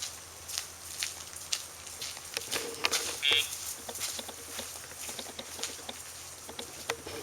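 Footsteps and taps on the ground, with one short electronic beep about three seconds in: the sound box that signals a Dogtra e-collar pager vibration, given when the leash goes tight.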